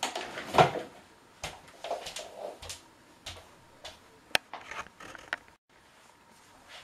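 Knocks and rustles of a person getting up from a desk chair and moving off: a loud rustle and bump just under a second in, scattered lighter knocks after it, and one sharp click about four and a half seconds in.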